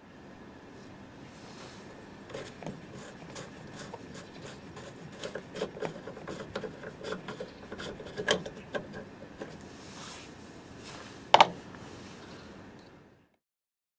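Plastic coolant expansion tank cap on a Peugeot 206 being unscrewed by hand: scraping and small clicks from the turning cap and threads, with one sharp click about eleven seconds in.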